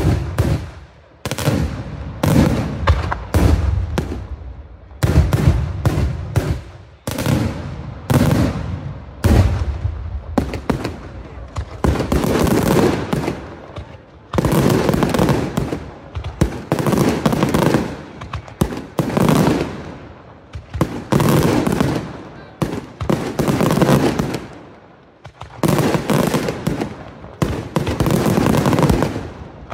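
Daylight aerial fireworks going off in rapid volleys: loud bangs and crackling in dense clusters a second or two long, following one another with short gaps.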